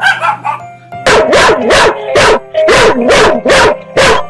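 A dog barking rapidly and repeatedly, about two to three barks a second, after a second of scattered yips, with music in the background.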